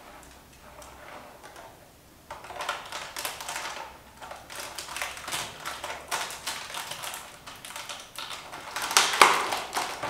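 Thin plastic water bottle crackling and crinkling as hands grip it and press tape onto its cut edge. It starts about two seconds in and is loudest near the end.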